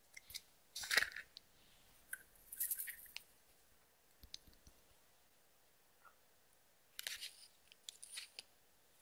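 Clear slime with makeup and glitter mixed in, worked by hand, giving short sticky crackles and clicks in a few brief clusters.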